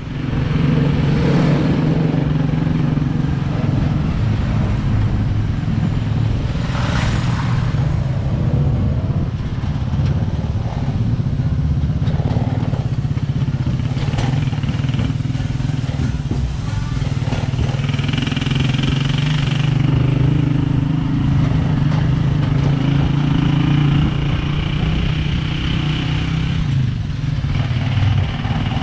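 A motor vehicle's engine running steadily throughout, with a low even drone.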